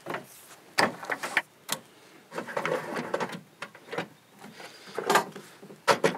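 Hands working electrical cables at a terminal panel. The cables rub and scrape as they are pulled through, and a metal hex key taps and clicks on the terminal lugs, with a couple of sharper clicks near the end.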